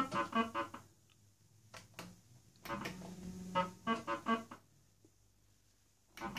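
Old fruit machine playing its electronic sounds: runs of quick short beeps as its reels stop, a steady buzzing tone while they spin, and two sharp clicks about two seconds in.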